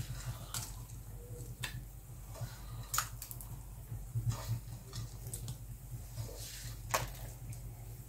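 Chopped nuts and almond flakes sprinkled by hand onto a glazed strawberry sheet cake: faint scattered clicks and light handling sounds, about one every second or so, over a low steady hum.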